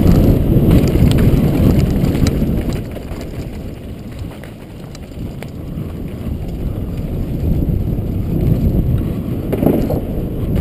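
Wind buffeting a helmet-mounted camera's microphone as a downhill mountain bike runs down a dirt and gravel track, with rumble from the tyres and scattered clicks of stones and rattling parts. The noise eases for a couple of seconds partway through, then builds again.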